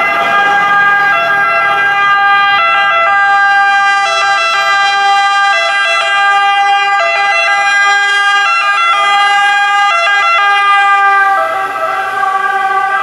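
Two-tone siren of a MAN TGS 18.320 fire engine responding to an emergency. It alternates between a higher and a lower note as the truck approaches. About eleven seconds in, the truck passes close by and the pitch drops slightly.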